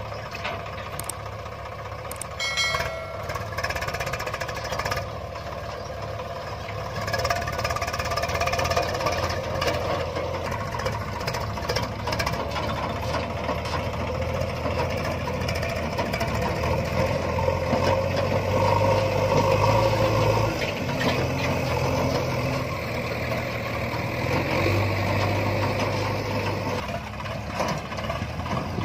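Swaraj 744 tractor's three-cylinder diesel engine running under load while it pulls a fully loaded soil trolley, its note rising and dropping a few times as it works.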